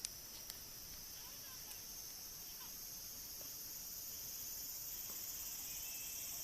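Steady high-pitched chorus of insects, slowly growing louder, with a few faint clicks near the start.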